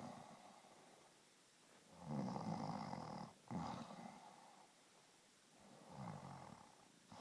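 Slow snoring: a long snore about two seconds in with a short breath right after it, and a fainter snore about six seconds in.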